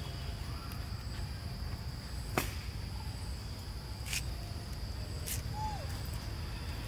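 Forest ambience: a steady high insect drone over a low rumble, broken by three sharp clicks or snaps, the loudest about two and a half seconds in. A short falling chirp near the end.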